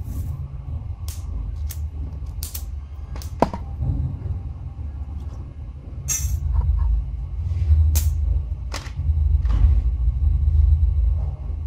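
Irregular sharp clicks and snaps, about ten in all, from a homemade matchbox-and-rubber-band gun being handled and cocked, over a steady low rumble.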